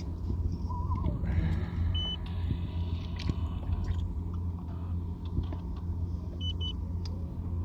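A steady low engine-like hum, with a short high electronic beep about two seconds in and two quick beeps near the end.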